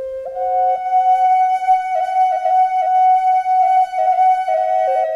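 Native American flute playing a slow melody of long held notes, with quick little dips between them.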